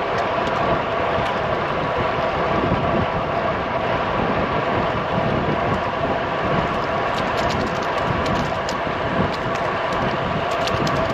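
Steady rush of wind on the microphone and tyre noise from a road bike being ridden at speed on the flat.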